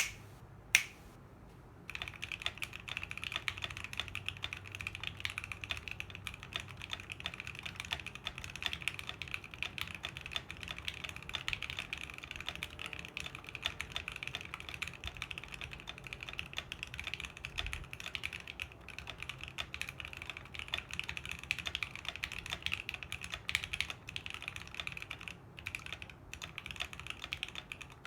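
Steady, fast typing on a Fuji 65 custom mechanical keyboard with a carbon fibre plate, lubed and filmed Seal linear switches and Geekark keycaps. A single sharp click comes just under a second in, and the continuous keystrokes begin about two seconds in.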